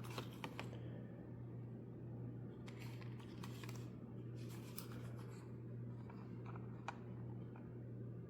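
Faint scratching and a few light clicks from hands handling a 3D-printed plastic cold shoe mount on a camcorder, over a steady low hum.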